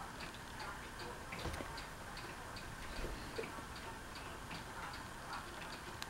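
Faint, steady ticking, about two to three ticks a second, with a couple of soft knocks.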